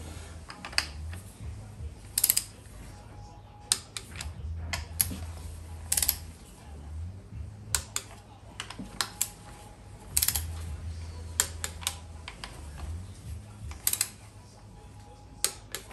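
Irregular sharp clicks and light knocks of a socket wrench and plastic ignition-coil parts as the coils are refitted over freshly fitted spark plugs. A low hum comes and goes.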